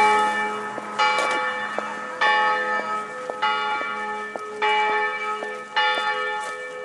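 A single church bell tolling at a steady pace, one stroke about every second and a bit, each stroke ringing on and fading until the next.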